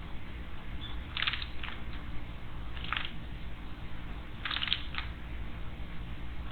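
Small birds at a garden stone water basin making a few short, scratchy sounds, about six in all, in two small clusters, over a steady low rumble.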